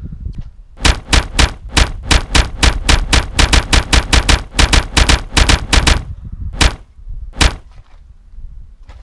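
Automatic gunfire sound effect: a rapid burst of shots, about five a second for about five seconds, followed by two single shots.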